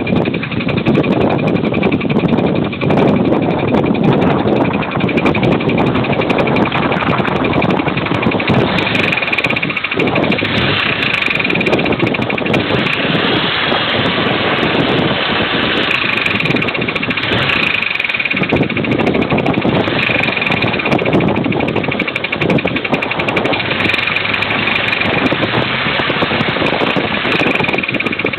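A 2003 Pontiac Grand Am GT's 3.4-litre V6 running steadily with a rapid knocking from inside the engine, which the owner thinks might be the lifters or a connecting rod bearing. A thin high whine comes and goes over it from about ten seconds in.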